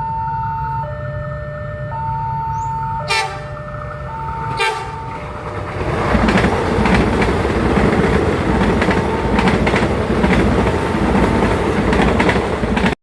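A two-tone warning alarm alternating between a high and a low note, broken by two short train horn toots about three and four and a half seconds in. From about six seconds a passing train grows loud with the rush and clatter of wheels on the rails. The sound cuts off abruptly near the end.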